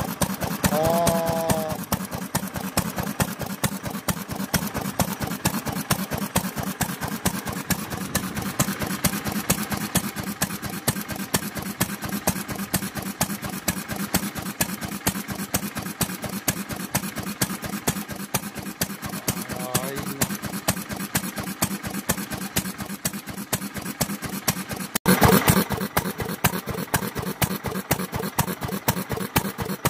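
Sekiya 'Best' single-cylinder stationary oil engine (hatsudoki) running steadily, its exhaust beating in an even rhythm. There is a brief louder rush of noise near the end.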